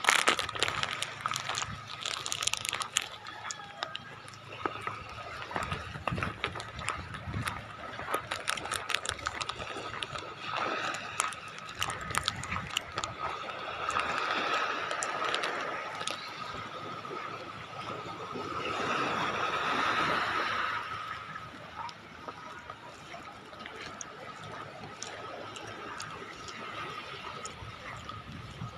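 Footsteps over wet mud and storm debris, a run of small clicks and knocks, with a rush of sea water swelling up louder twice around the middle. A faint steady high tone sits underneath.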